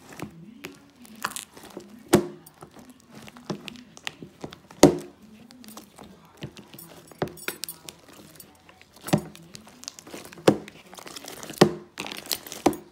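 Hands mixing slime with cut-up white foam-like pieces in a plastic bowl: irregular crinkling with sharp clicks and snaps, the loudest about two and five seconds in and a run of them near the end.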